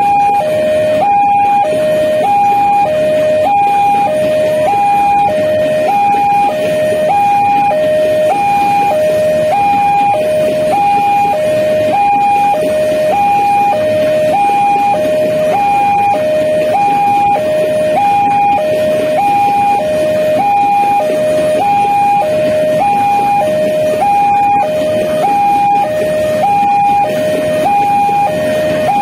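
Level-crossing warning alarm sounding a steady alternating high-low two-tone, over the rumble of loaded container freight wagons rolling past on the rails.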